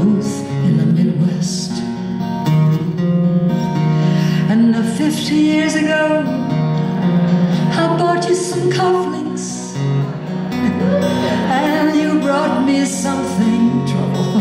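Solo steel-string acoustic guitar played live with a woman singing over it for much of the passage, in a concert hall.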